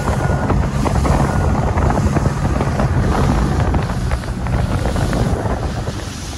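Strong wind buffeting the microphone over water splashing against a boat's hull, a loud steady rushing noise.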